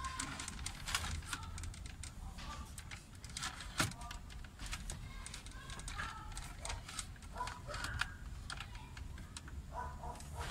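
Plastic center dashboard panel of a Mitsubishi Lancer being handled and fitted into the dash: a run of light plastic clicks and taps, with one sharper knock about four seconds in.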